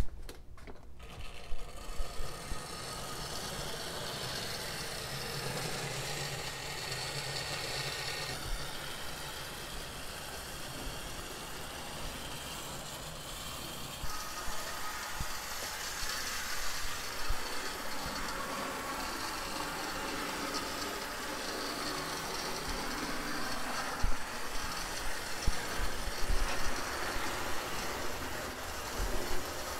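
HO scale model train running on the layout: a decades-old locomotive's motor runs steadily as it pulls a string of cars, with the wheels rattling and clicking on the track. There is a sharp click at the very start, as the power pack is set going.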